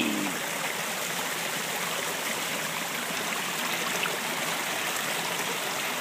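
Small waterfall pouring steadily over rocks, a constant splashing rush of water.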